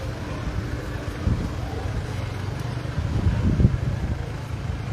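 Low, steady rumble of a motor vehicle running close by, swelling briefly a couple of times.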